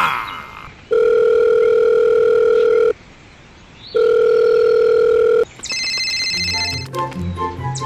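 Telephone ringback tone: two long, steady beeps, the first about two seconds and the second about a second and a half, with a second's pause between them, as a call rings out. About five and a half seconds in, background music with a beat takes over.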